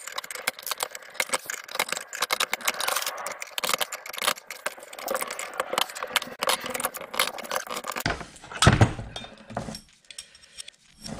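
Ratchet wrench clicking rapidly as it turns the forcing screw of a bearing puller, drawing a bearing off a 280ZX five-speed transmission shaft. After about eight seconds the clicking stops and a dull thump follows.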